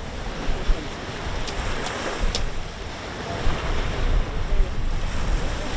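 Wind buffeting the microphone: a steady rushing noise with a gusty low rumble, and a few faint clicks about two seconds in.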